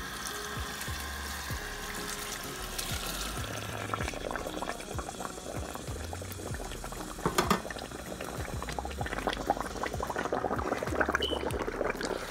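Hot canola oil with fried red onion slices poured from a frying pan onto a pot of ndole, hissing and crackling as it meets the wet greens. The crackle grows denser over the last few seconds as it is stirred in.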